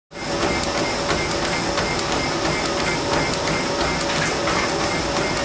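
Motorised treadmill running at a 4 min/km pace: a steady motor and belt whine, with the regular thuds of a runner's footfalls on the belt.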